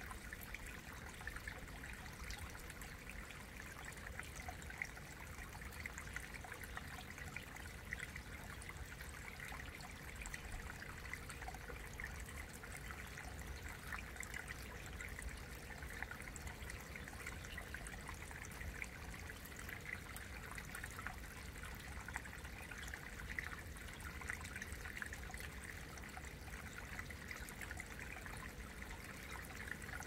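Small mountain stream trickling over rock into a shallow pool: a steady, gentle babble of running water.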